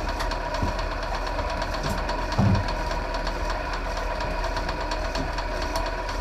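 Electric commercial fishing reel's motor running steadily as it winds in line, with a fast even mechanical ticking and one dull thump about two and a half seconds in.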